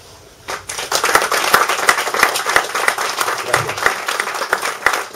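Small audience applauding with hand claps, starting about half a second in and quickly filling out into steady clapping.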